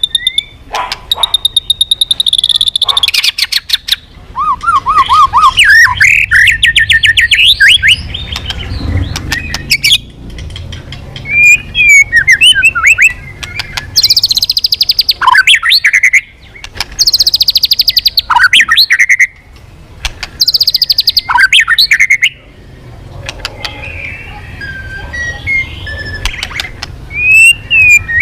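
White-rumped shama singing loud, varied phrases: rapid rattling trills, clear whistles and calls that rise and fall in pitch, delivered in bursts of a second or two with short pauses between them.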